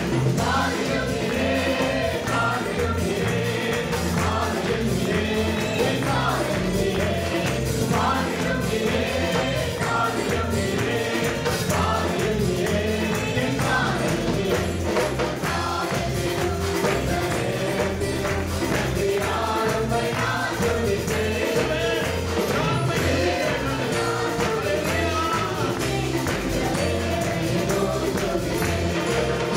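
Live church worship music: a man sings a Tamil Christian song into a microphone, backed by a band with keyboards and electric bass playing a steady beat.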